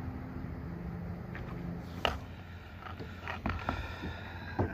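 A steady low rumble, then a sharp click about two seconds in. Near the end come a few short clicks and knocks of fishing gear being handled on a kayak.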